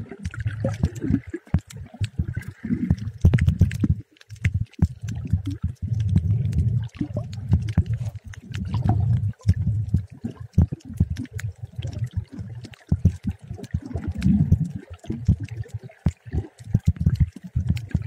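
Water heard through a submerged camera: muffled, uneven low sloshing and gurgling that keeps surging and dropping away, with many sharp clicks scattered throughout.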